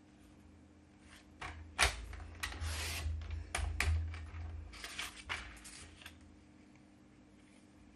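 Stampin' Up! paper trimmer cutting white cardstock: a series of sharp plastic clicks and knocks, the loudest about two seconds in, with short scraping swishes between them as the blade carriage runs along the rail and the sheet slides over the trimmer base.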